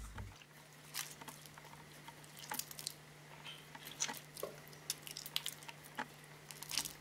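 Wet clay squelching in a potter's hands as it is squeezed and pressed over a pottery wheel head, in soft irregular squishes and taps, with a steady low hum underneath.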